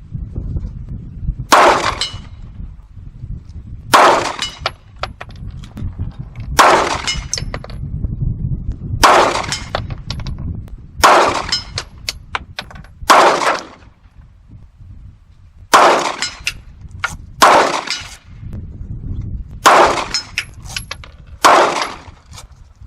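Glock 45 9 mm pistol firing slow aimed single shots, about ten in all, roughly two seconds apart, at a steel gong about 100 yards off. Several shots are followed a moment later by a faint high ring from the gong being hit.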